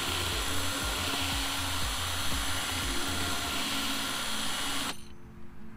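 Cordless drill running steadily, its bit boring into the steel pin of a UTV differential carrier to free a pin that would not punch out; the drill stops suddenly about five seconds in.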